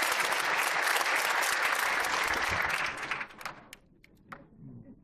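Audience applauding, dying away about three seconds in, with a few last scattered claps.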